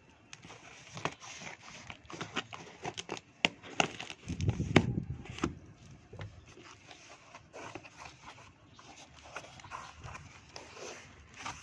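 Hands handling the packaging of an electric hand blender: scattered clicks, taps and rustles of cardboard and plastic, with a louder low rumble and thud about four to five seconds in.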